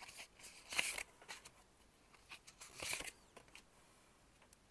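Playing cards being handled: short swishes and light taps as cards are slid out and laid down, the loudest about a second in and again near three seconds.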